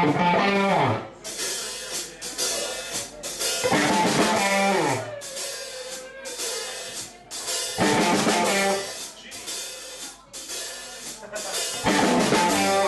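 Live blues band playing an instrumental intro. An electric guitar phrase falls in pitch and comes round about every four seconds, over drum kit with bass drum and cymbals, and bass guitar.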